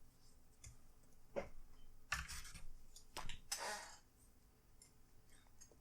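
Plastic laptop casing being handled and worked apart: a few light clicks, with two brief scraping noises about two and three and a half seconds in.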